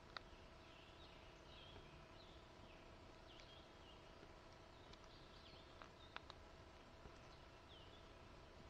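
Near-silent woodland with faint songbird chirps and short calls scattered throughout, and a few small sharp clicks, two of them close together about six seconds in.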